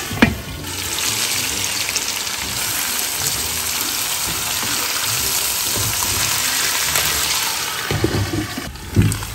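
T-bone steaks sizzling in oil in a frying pan, covered after browning so they steam, giving a steady hiss. There is a sharp clink just after the start and a few knocks near the end.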